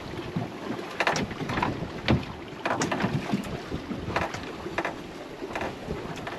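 Wind buffeting the microphone aboard a fishing boat at sea, with irregular sharp knocks about once or twice a second.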